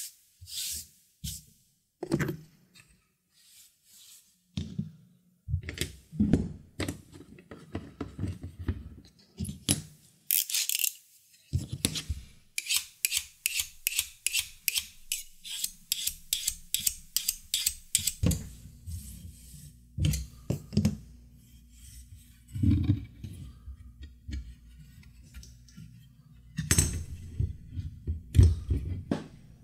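Small tools and materials knocked, set down and handled on a workbench, with sharp clicks and knocks. Midway there is a quick, even run of clicks, and near the end a wooden hiking stick is handled while a leather strip is wrapped onto it. Low background music comes in a little past halfway.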